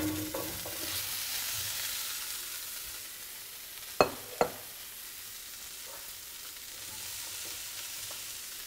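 Cauliflower florets dropped into hot olive oil in a stainless steel sauté pan, sizzling steadily as they start to fry; the sizzle eases a little after the first few seconds. Two sharp clicks about four seconds in.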